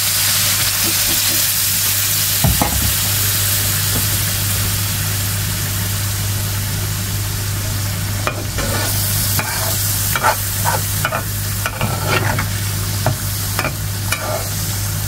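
Fish curry sizzling and bubbling in a pan on a gas stove, with a flat spatula stirring and scraping against the pan, the scrapes and knocks coming thick in the second half.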